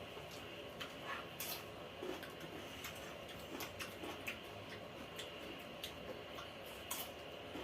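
Faint, irregular clicks and smacks of people eating: mouth sounds and utensils against dishes, a few sharp ticks a second apart, over a low steady hiss.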